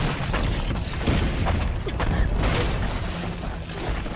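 Action-scene sound effects: a loud low rumble with scattered knocks and cracks.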